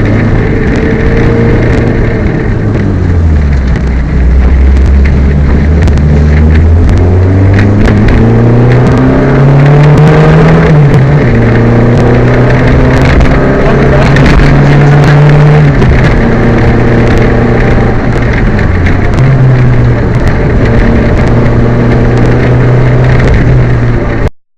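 Loud in-car sound of a misfiring Peugeot 205 rally car driven hard on a stage. The engine pitch climbs and drops back repeatedly through gear changes, with many short sharp knocks over it. The sound cuts off suddenly near the end.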